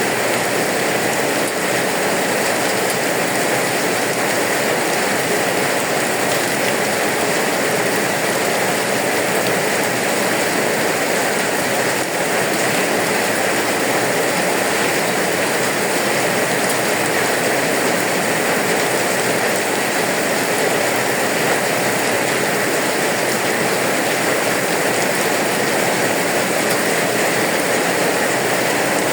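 Rain falling steadily, an even hiss with no breaks or separate sounds.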